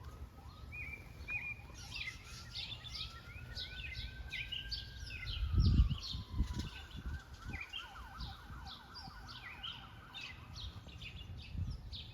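Wild birds chirping and singing, with a faint siren wailing in the background, slowly rising and then falling. A low thump about six seconds in.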